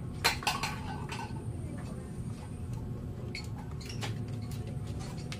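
Scattered light clicks and knocks over a steady low rumble, the sharpest two in the first half-second, then a few fainter ones spaced irregularly.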